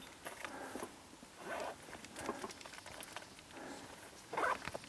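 Faint, scattered rustles on dry fallen-leaf litter.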